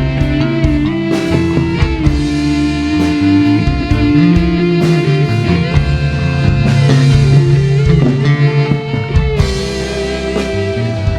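A live band playing through a PA sound system at a soundcheck: electric guitar or keyboard melody with sliding, bending notes over held bass notes and a drum kit.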